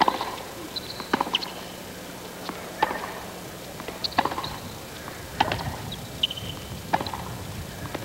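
Tennis rally on a hard court: a ball struck back and forth by rackets, with a sharp hit about every one and a half seconds.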